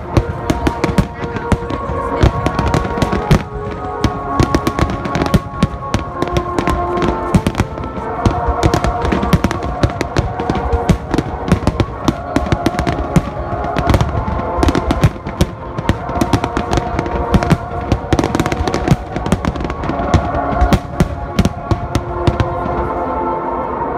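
Aerial fireworks going off in rapid succession, a dense string of bangs and crackles, with music playing alongside.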